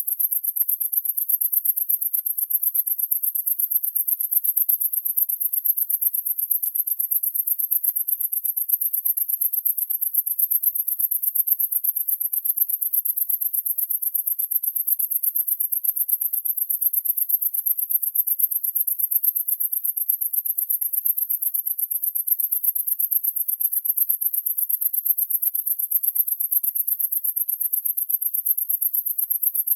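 Insects chirring in a continuous, very high-pitched, rapidly pulsing trill that stays steady.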